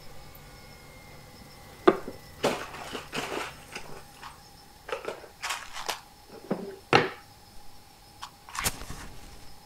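An irregular series of sharp knocks and longer scraping noises over a faint steady hum. The loudest knocks come about two seconds in and about seven seconds in.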